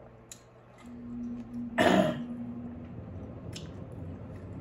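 A woman clears her throat once, a short loud cough-like burst about two seconds in, between faint mouth clicks and quiet chewing while eating.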